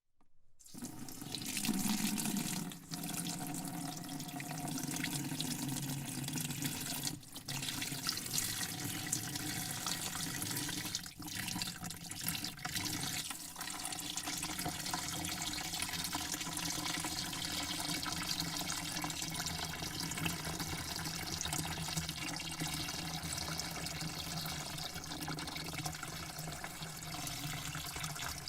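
Water spraying into a bucket in a steady rush, starting about half a second in, with a few brief breaks in the flow during the first thirteen seconds.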